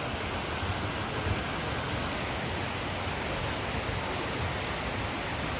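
Fast-flowing mountain river rushing: a steady, even hiss of water.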